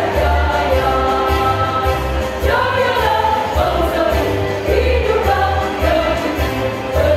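Women's choir singing held notes in harmony, the chords changing every second or so, over a low bass accompaniment.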